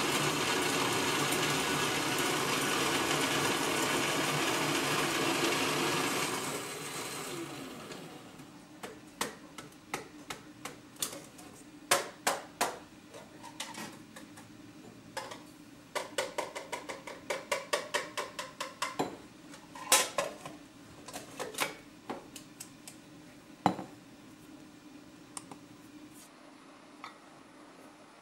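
Electric coffee grinder running steadily for about six seconds, then winding down with a falling tone. After it come a series of light taps, knocks and clinks of kitchenware.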